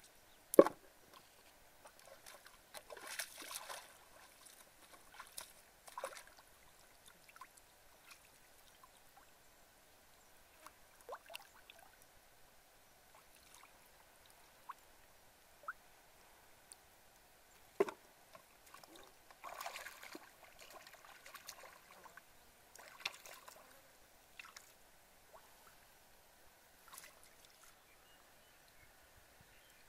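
Hands sloshing and splashing in shallow muddy puddle water in scattered short bursts, with two sharp knocks, one about half a second in and one about eighteen seconds in.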